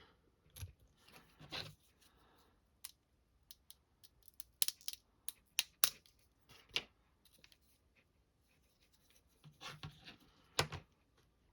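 Knife blade cutting and scraping through 3D-printed support structures, with irregular sharp clicks and snaps as the supports give way, busiest from about four to seven seconds in and again near the end.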